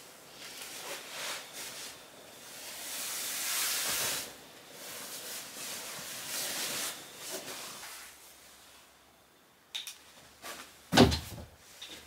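Quilted fabric mattress pad rustling and swishing as it is spread and smoothed over the floor by hand, in bouts. A few short knocks follow, then one sharp thump near the end.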